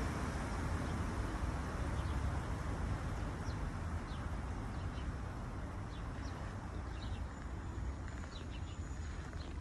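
Outdoor street ambience: a steady low rumble, with short high bird chirps scattered through it from a few seconds in.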